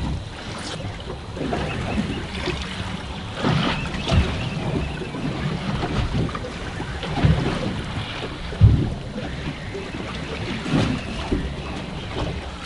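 Water slapping against a fishing boat's hull, with wind buffeting the microphone. Irregular low thumps come every second or two, the strongest near the end.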